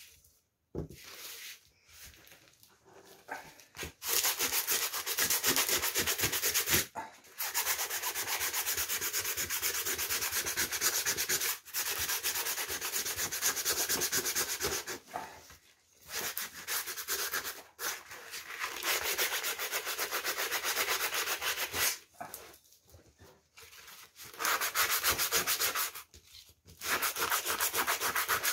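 Hand sanding the metal body of an old oil can with a sanding sponge: fast back-and-forth scraping strokes in several long spells with short breaks between them. Softer handling sounds come in the first few seconds.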